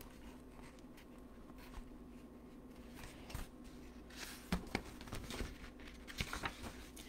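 Pages of a thin picture book being turned by hand: faint paper rustling and small clicks from about three seconds in, over a low steady room hum.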